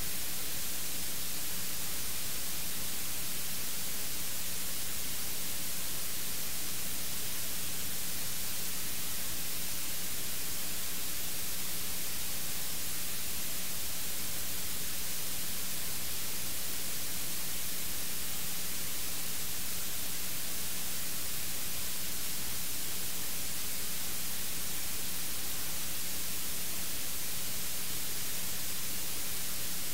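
Steady electronic static hiss from an open audio feed with nothing playing, with a faint steady hum beneath it.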